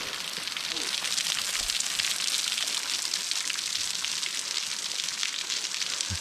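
Water from a thinly trickling waterfall spattering and splashing onto rock close by: a steady, even hiss.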